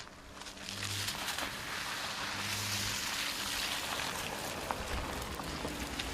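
Audi SQ5 SUV driving off-road: a loud rushing hiss from the tyres, with scattered clicks and knocks, over a low engine hum. The hiss swells about half a second in.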